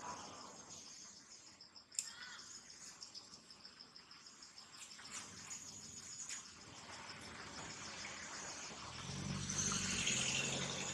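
Insects chirring steadily in a fast, high, pulsing trill. There is a sharp click about two seconds in, and near the end a low hum swells and grows louder.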